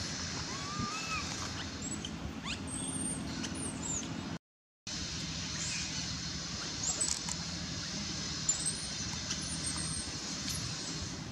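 Outdoor ambience under a tree canopy: a steady hiss with faint high steady tones and a few short chirping calls. The sound cuts out completely for about half a second partway through.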